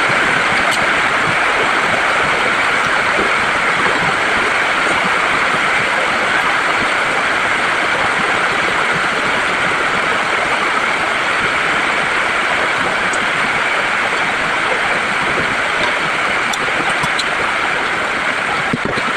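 Steady rain, an even unbroken hiss with a few faint clicks over it.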